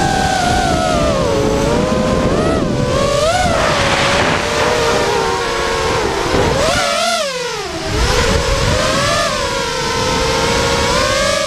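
Electric motors and propellers of a 210-size FPV racing quadcopter whining, the pitch rising and falling with the throttle, over wind rush on its onboard camera's microphone. About seven seconds in the wind drops away and the whine sags briefly before picking up again.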